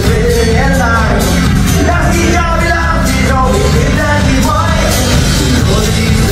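Folk-punk band playing live at full volume, heard from the crowd: electric guitars, bass and drums with a wavering melody line over the top.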